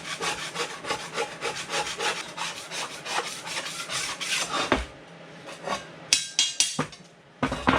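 Quick, repeated hand-scrubbing strokes scraping loosened rust off the steel of a VW T3 cross member after a rust treatment. The scraping eases off after about four and a half seconds, and a few sharp knocks follow near the end.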